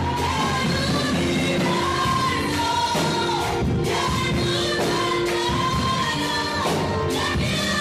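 Worship song at a church service: voices singing held, sustained melody lines over steady musical accompaniment.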